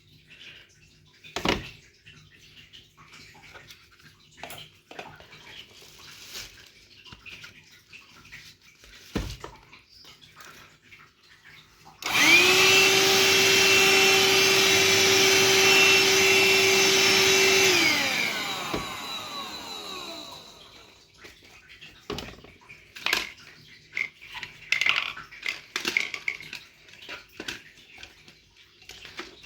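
Parkside cordless vacuum cleaner switched on: it starts abruptly, its motor whine rising briefly to a steady pitch, runs for about six seconds, then is switched off and winds down with a falling whine. Scattered clicks and knocks come before and after it.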